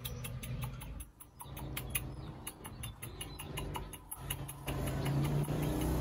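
Insects chirping in a fast, even train of short high-pitched pulses, several a second, over a low steady hum that grows louder after about four seconds.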